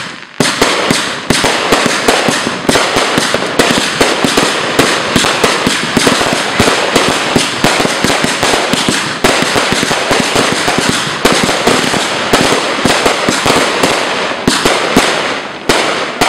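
Aerial fireworks going off in a continuous barrage: loud bangs several times a second, one after another, with a short break just after the start.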